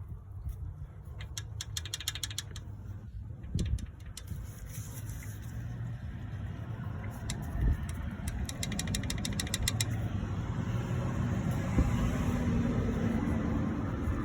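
Nissan KA24E 2.4-litre four-cylinder engine running with a loud, rapid clacking from the valvetrain over its low rumble, coming in stretches and growing louder toward the end. The owner takes the clack for lifter/rocker slap; it came on suddenly with a loss of power, with good oil pressure.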